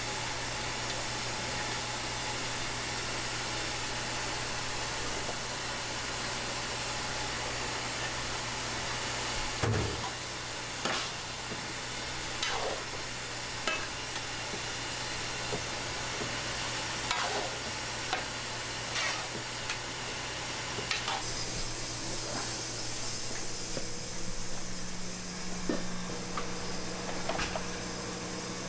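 Tteokbokki sizzling on a hot iron griddle with a steady hiss over a low hum. From about ten seconds in, utensils scrape and knock against the plate every second or two as the rice cakes are stirred.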